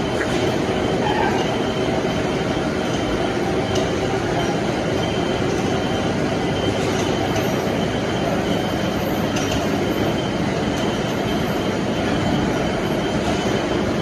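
Steady mechanical running noise from heavy workshop machinery, with a faint constant high whine over it.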